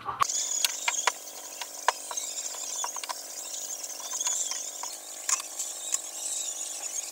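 Knife peeling and slicing a green papaya on a wooden chopping board: irregular sharp clicks and taps of the blade against the fruit and board.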